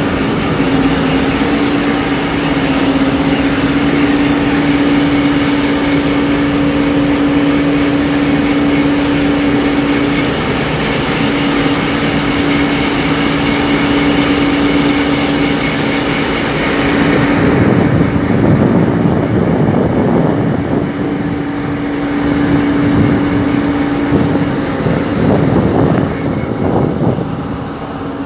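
Engine of a small passenger boat running at a steady speed, a constant drone, under the rushing of water and wind. From about seventeen seconds in the rushing turns rougher and deeper, like wind buffeting the microphone.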